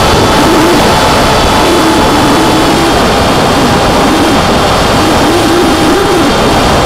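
Onboard audio from a Skyfun foam RC plane in flight: loud, steady wind rush over the camera microphone with the electric motor and propeller whining steadily underneath.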